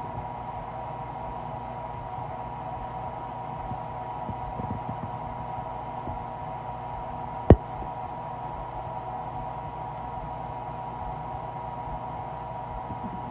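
Hungry stomach growling heard close up from an empty belly: faint low gurgles over a steady hum, with one sharp, loud pop about halfway through.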